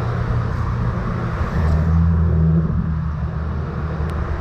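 Road traffic: a motor vehicle's engine running close by over steady road noise, getting louder about one and a half seconds in.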